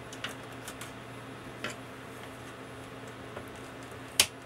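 A few light clicks of a replacement fuse and its cap being fitted into a bench multimeter's front-panel fuse holder, then one sharp, louder click near the end.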